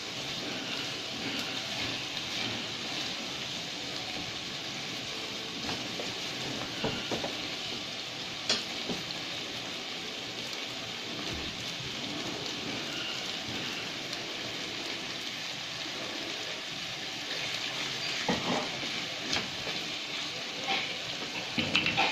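Korean rice cakes and sliced onion sizzling in a hot non-stick wok, stirred with a silicone spatula. A steady frying hiss, with a few light knocks of the spatula against the pan, more of them near the end.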